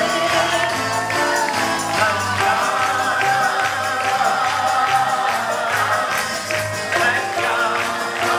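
Live Messianic worship music with singing over a band playing a steady beat.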